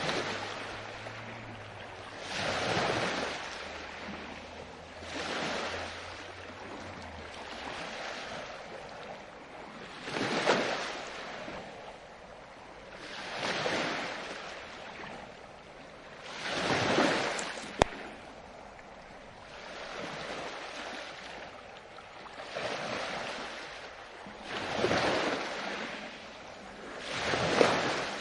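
Ocean surf: waves breaking and washing in, a rushing swell that rises and fades again about every three seconds.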